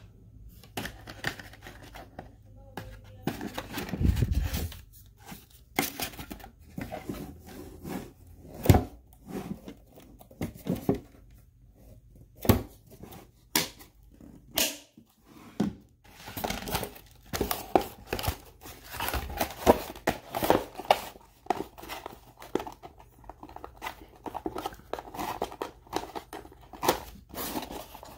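Close handling noise: small plastic pieces and a footlocker lid being moved, then string and plastic clips worked on a cardboard box, giving many irregular clicks, knocks and crinkles, busier in the second half.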